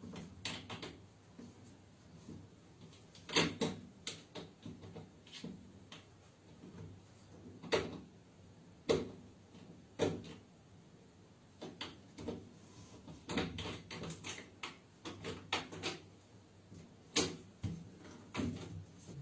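A door being rattled and knocked as a cat works at it to get it open: irregular sharp clicks and thuds of the handle, latch and door, some in quick clusters.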